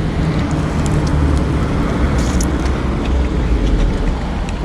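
Road traffic going by: a steady rumble and hiss of car engines and tyres.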